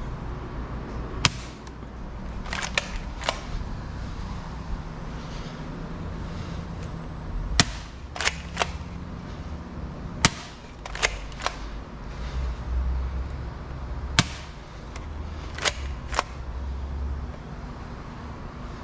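Bug-A-Salt 3.0 salt gun being pumped and fired: about a dozen sharp snaps and clacks in irregular clusters, with a steady low rumble underneath.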